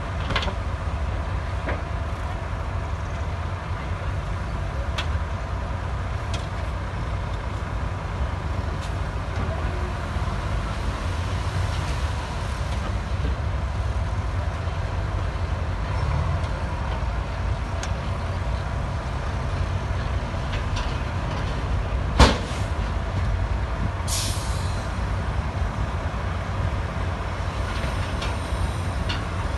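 Heavy diesel earthmoving machinery running steadily. One sharp knock comes about twenty-two seconds in, and a short hiss of air follows about two seconds later.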